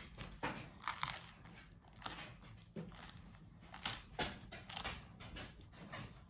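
Close-up chewing of a mouthful of garlic bread: irregular soft crunches and wet mouth clicks.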